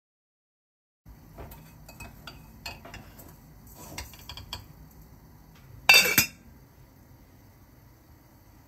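Small metallic clinks and knocks from a Mauviel copper saucepan on a gas hob, then a loud ringing clang about six seconds in as its copper lid is set on the pan.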